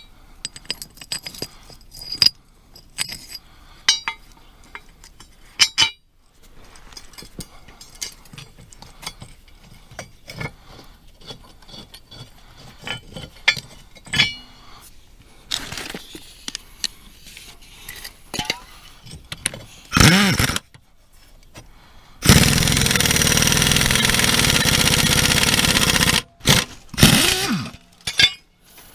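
Metal parts clinking and knocking as mower blades, washers and tools are handled, followed by a power tool run in short bursts and once for about four seconds, tightening the blade bolts.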